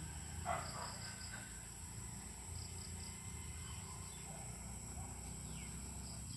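Faint outdoor ambience: steady high-pitched insect drone, typical of crickets, over a low hum, with a brief faint sound about half a second in.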